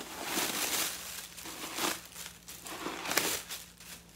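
Crinkling and rustling, with a few louder crackles, as a stuffed leather handbag is handled and opened.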